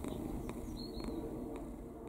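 Domestic cat purring close to the microphone: a steady, low purr.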